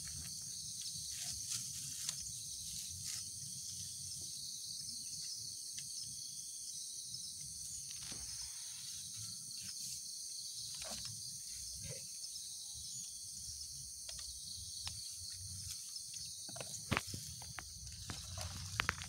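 Steady high-pitched insect chorus, with scattered short crinkles and taps as paper wrappings and plastic bags of food are handled; one sharper click near the end.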